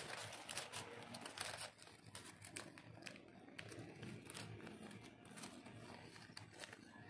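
Origami paper rustling and crinkling as hands fold and crease it. A quick run of crackles comes in the first couple of seconds, then scattered softer ones.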